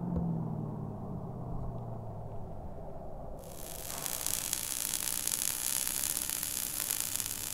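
A car's engine fading into a low rumble. About three and a half seconds in, a loud, even hiss of static cuts in suddenly and runs on, a static-noise effect under the logo reveal.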